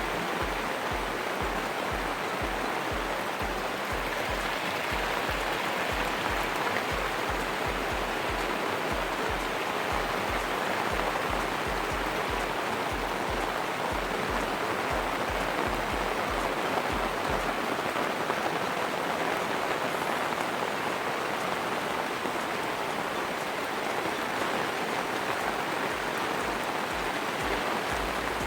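Steady rush of falling water, an even hiss without a break, from rain or water spilling into the pond.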